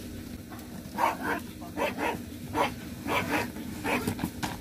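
A small dog barking in a run of short barks, about two a second, beginning about a second in.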